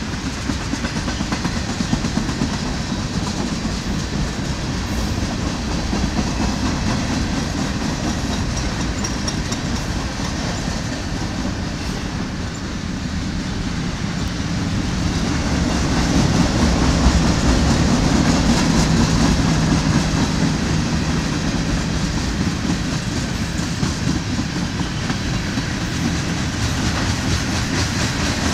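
Freight cars of a passing mixed freight train rolling by at close range: a steady rumble of steel wheels on the rails, getting louder about halfway through.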